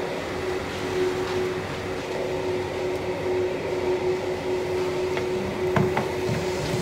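Steady mechanical hum with a constant low tone, and two short metal clinks about six seconds in as the wire rack is lowered into the tandoor on iron hooks.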